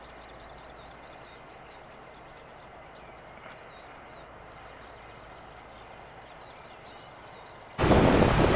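Steady outdoor background with small birds chirping faintly and high. About eight seconds in it cuts abruptly to the loud rushing of a shallow mountain stream running over stones.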